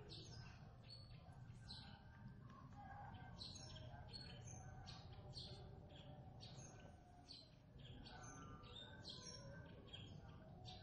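Faint chirping of small birds: short, falling chirps repeating a couple of times a second.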